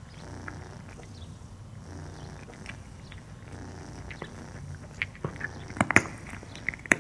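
A cat eating dry kibble off a hard tabletop, with sharp crunches as it chews starting about five seconds in. Under them is a low, steady rumble.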